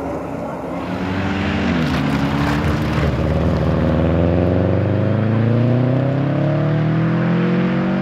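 Subaru Liberty RS Turbo's turbocharged flat-four engine accelerating hard. Its pitch drops about two seconds in, then climbs steadily.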